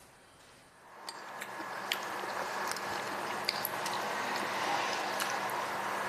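Spoons clicking lightly against soup bowls at scattered moments as two people eat, over a steady room hiss that comes up about a second in.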